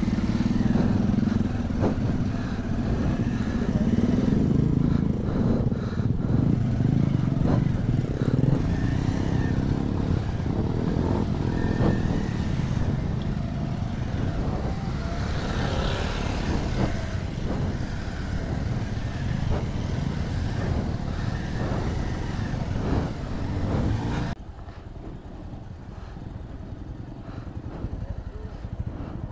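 Motorcycle engine running under way, with frequent knocks and rattles from the bike over the rough off-road track. About 24 seconds in, the sound suddenly drops to a quieter level.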